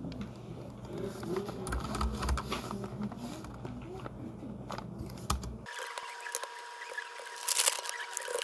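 Typing on a low-profile pantograph (scissor-switch) keyboard, a light irregular patter of key clicks. About two-thirds of the way in, the background hum drops out abruptly and a faint steady tone takes over, while the clicks go on with a louder flurry near the end.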